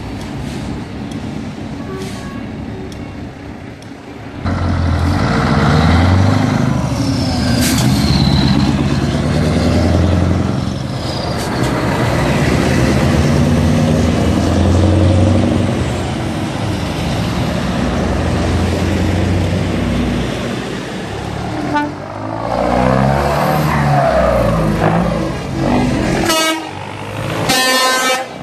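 Heavy trucks driving close past one after another, their diesel engines pulling away and changing pitch as they go through the gears, with horn toots. It gets much louder about four seconds in as a truck comes by.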